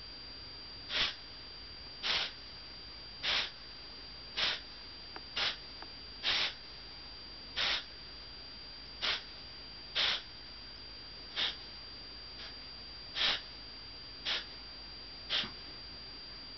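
A run of about thirteen short, breathy coughs, each under half a second and coming roughly once a second.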